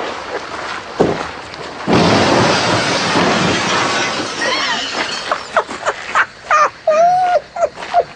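A sharp knock, then a loud crashing, breaking noise that lasts two or three seconds, followed by short voice-like cries.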